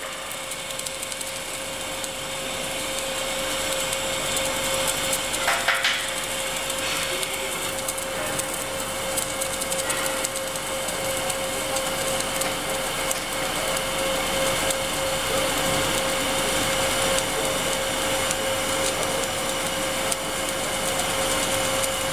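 Automated welding arc of a Kistler pipe-welding machine crackling steadily as it welds the seam of a segmented steel pipe elbow, with a steady tone underneath and a brief knock about five seconds in.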